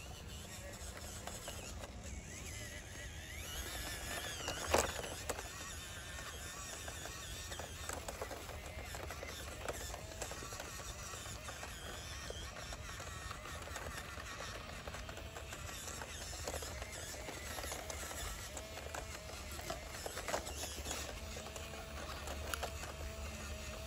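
Small electric motor and gears of a 1/18-scale RC crawler whining as it crawls, the pitch rising and falling with the throttle, over tyres crunching dry leaves and twigs. A sharp click about five seconds in.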